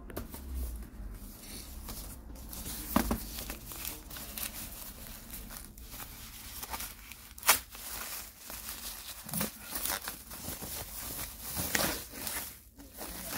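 Thin plastic wrapping crinkling and tearing as it is pulled off a replacement laptop keyboard top panel, with irregular sharp crackles and one louder crack about seven and a half seconds in.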